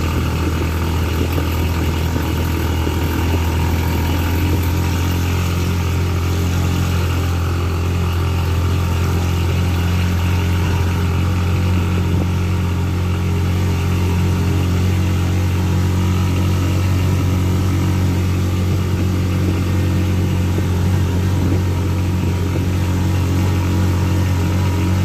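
Engine of an open-sided passenger vehicle running at a steady pace, heard from inside the cab as an even, unbroken hum.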